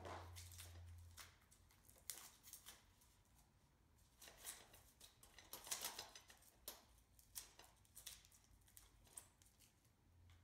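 Faint, irregular clicks and rustles of hands handling the parts of a wire utility shopping cart during assembly.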